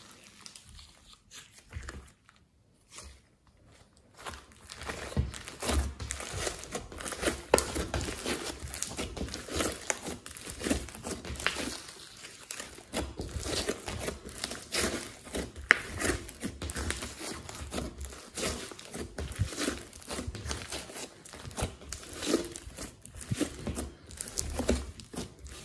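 Thick glossy slime mixed with foam beads being squeezed, stretched and kneaded by hand, giving a dense run of small clicks, pops and sticky tearing sounds. There is a short pause about two seconds in.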